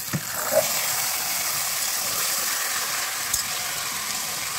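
Marinated chicken sizzling hard as it hits hot mustard oil and fried onions in an aluminium kadai, a steady hiss that starts suddenly as the meat goes in.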